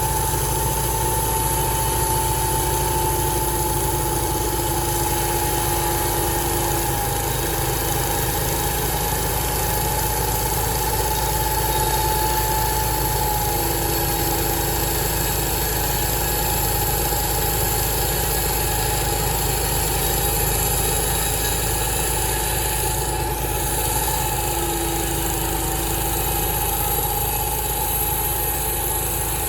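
Sawmill machinery running steadily: a constant engine hum with a steady high whine, and a lower tone that comes and goes three times.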